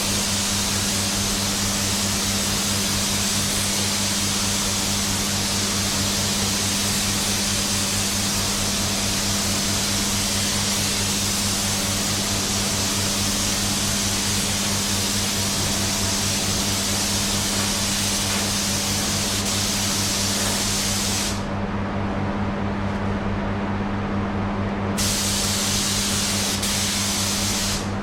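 Compressed-air paint spray gun spraying in a long, steady hiss, stopping about 21 seconds in and starting again some three and a half seconds later, over a steady low hum.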